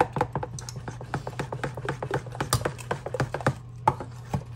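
Rapid tapping and scraping as sour cream is knocked out of a plastic tub with a spoon into a saucepan, several taps a second, thinning out near the end. A steady low hum runs underneath.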